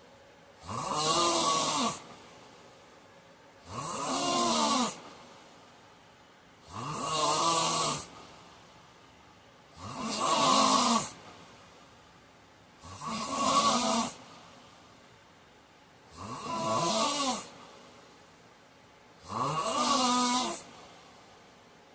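A man snoring loudly in a steady rhythm: seven snores about three seconds apart, each lasting just over a second, with quiet gaps between.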